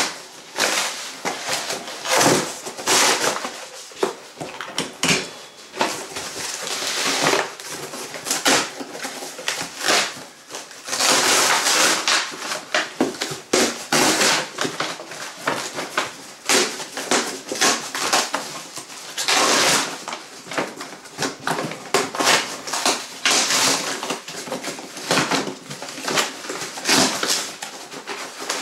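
Corrugated cardboard box being torn open by hand: repeated ripping and tearing bursts, two of them longer rips, amid rustling and scattered knocks.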